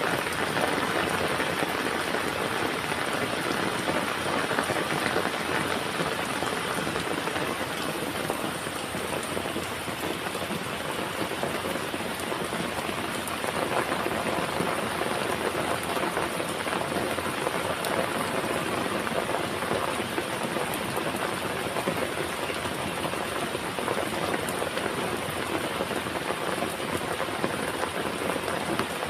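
Heavy rain falling steadily, a dense even patter of raindrops on surfaces.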